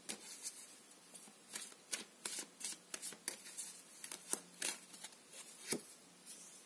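Tarot cards being shuffled by hand: a quick, irregular run of light card slaps and flicks, a few a second, with a sharper one a little before the end.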